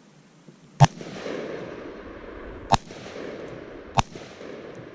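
Three rifle shots from an AR-15 with a Radical Firearms RF-15 upper in 5.56 NATO, the second about two seconds after the first and the third a little over a second later. Each shot is followed by a long rolling echo.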